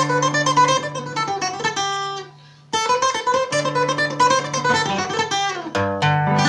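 Nylon-string acoustic guitar playing a quick run of single plucked notes. The run breaks off about two seconds in and is played again from the start, and near the end it gives way to a low bass note and a ringing arpeggiated chord.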